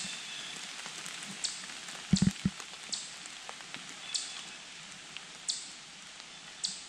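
Scattered light ticks and patters on leaves over a faint steady hiss, with a quick run of about four dull knocks about two seconds in.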